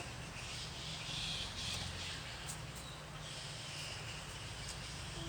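Outdoor ambience: a high chirring haze comes and goes in stretches of about a second over a steady low rumble, with a few faint clicks.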